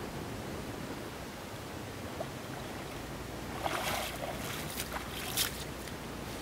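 Bare feet wading through shallow lake water: a few quick splashing steps in the second half, over a steady low background noise.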